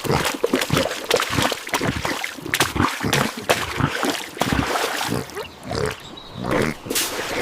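Cartoon animal sound effects mixed with many quick clicks and knocks.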